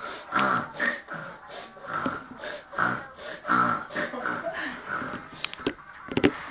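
A toddler's rhythmic, breathy vocal sounds, two to three short bursts a second, fading away near the end. A few sharp clicks follow near the end.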